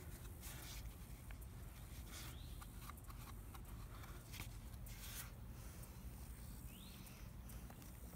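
Faint handling noise: scattered rustles and light clicks as a mud-caked plastic skeleton in a cloth shirt is turned over in the hands, over a low steady rumble. Two short rising squeaks are heard, one about two seconds in and one near the end.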